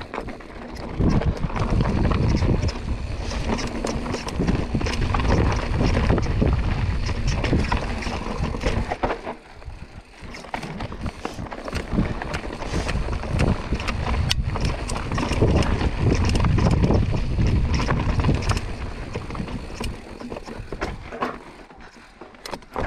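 Mountain bike, a Giant Stance 29, riding fast down a rocky dirt singletrack: wind buffets the camera microphone in a deep rumble, while the tyres crunch over dirt and rock and the chain and frame rattle and clack over bumps. It eases briefly about nine seconds in and again near the end.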